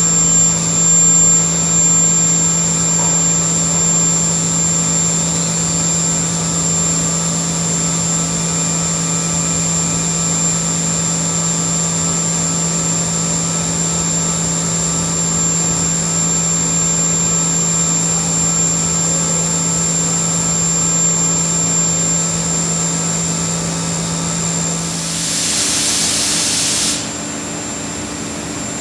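Haas VF-7/40 vertical machining center's 10,000 rpm spindle running at speed, just spun up: a steady high-pitched whine over a low hum. The hum drops away near the end, with a short hiss just before, while the whine carries on.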